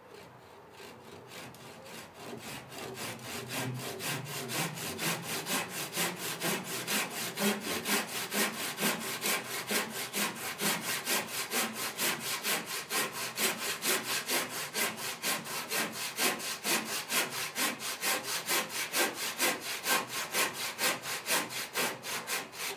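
Tenon saw cutting through the end of a wooden chine batten with quick, even back-and-forth strokes, starting light and growing louder over the first few seconds as the cut deepens. The cut angles the chine's forward end so that it sits flush against the boat's stem.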